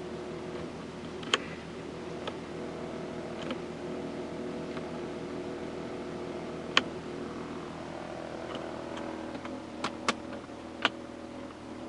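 Jaguar S-Type's 2.7 V6 turbo diesel idling steadily, heard from inside the cabin. A few sharp clicks come over it, the loudest about seven seconds in, with a small cluster near the end.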